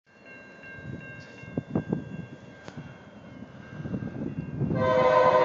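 Freight train approaching with faint steady horn tones over a low rumble and a couple of thumps, then, near the end, a BNSF diesel locomotive's air horn starts sounding loudly.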